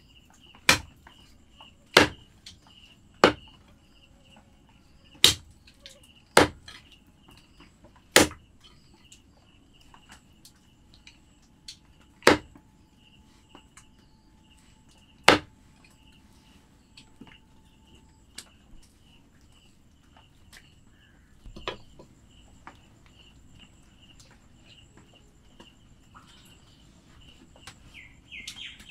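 Large chopping knife striking through raw chicken into a wooden log chopping block: single sharp chops a second or two apart, then fewer and further apart. A faint steady insect trill runs underneath.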